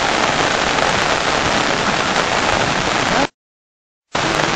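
Heavy rain falling steadily, a dense even hiss, that cuts out to dead silence for under a second about three seconds in.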